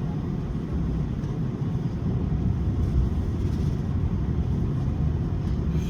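Steady low rumble of engine and air noise inside an airliner cabin.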